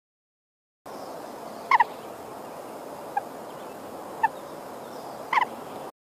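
An animal giving short, sharp pitched calls four times over a steady background hiss; the first and last calls are quick double notes and the one in between is fainter.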